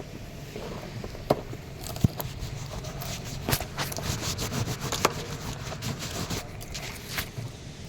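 Hand tools scraping and clicking against engine metal: scattered sharp knocks, with a stretch of rough scraping in the middle, as the engine's top surface is cleaned for the new head gasket.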